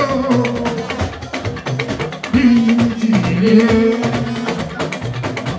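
Live Fuji band music: a man sings long, sliding held notes into a microphone over a steady beat of drums and percussion.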